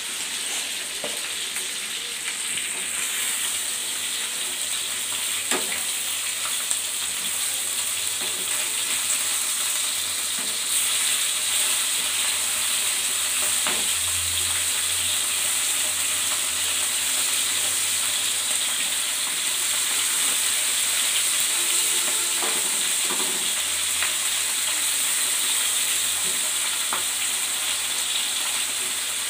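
Pabda fish and drumstick pods sizzling steadily in hot oil in a wok, with a few light clicks of a metal spatula.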